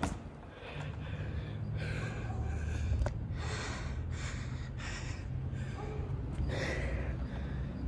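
A man's heavy, nervous breathing close to the microphone, a breath about every second, over a low steady rumble.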